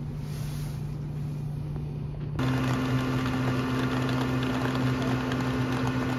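A steady low mechanical hum over a wash of noise, which changes abruptly about two seconds in to a louder, noisier hum with a second, higher tone.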